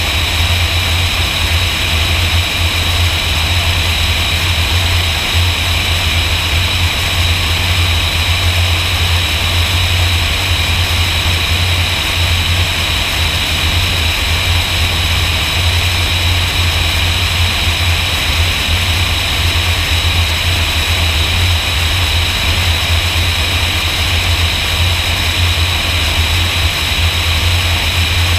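Light propeller airplane's piston engine and propeller running steadily in flight, a constant low drone with rushing air noise over it.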